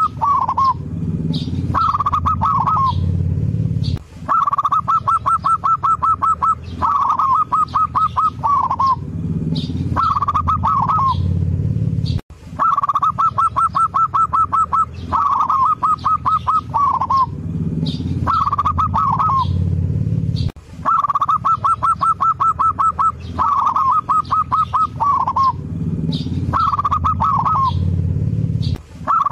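Zebra dove (perkutut) cooing: phrases of rapid staccato coos, some ending in a falling flourish, repeated one after another. The same stretch of song restarts about every eight seconds after a brief break, as a looped recording.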